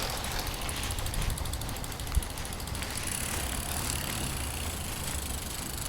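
Steady outdoor background noise with a low rumble and one faint knock about two seconds in.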